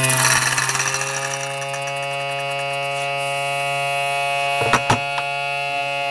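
Mini DC diaphragm air pump buzzing with a steady hum as it pumps into a plastic-bottle air tank. At the start compressed air hisses out through the tubing with fast ticking as it drives a small air engine, fading away over the first few seconds. A few sharp clicks come near the end, then the pump's hum slides down in pitch as it is switched off.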